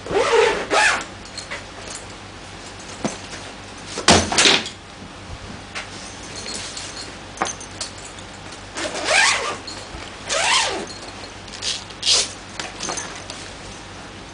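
Padded air-cushion gig bag being handled, with nylon fabric rustling and scraping in several short swishes. There is one hard thud about four seconds in as the bag takes a knock in an impact test.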